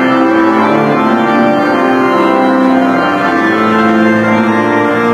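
Organ playing a hymn in held chords that change every second or so, with no singing heard.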